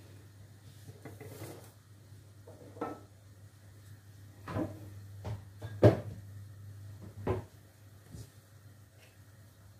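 Scattered knocks and clunks of kitchen handling, about half a dozen spread out with the loudest about six seconds in, over a low steady hum.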